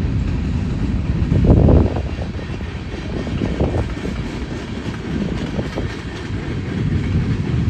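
Freight train of covered hopper cars rolling past: a steady low rumble of steel wheels on rail with a few scattered clanks, loudest about a second and a half in.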